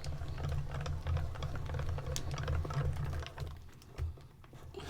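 Die-cutting machine running a die-and-paper sandwich through its rollers: a steady low hum with rapid clicking that stops about three and a half seconds in.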